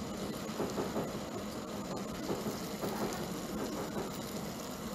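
Stir-fried noodles sizzling steadily in a steel wok as a wooden spatula stirs them, over a low steady hum.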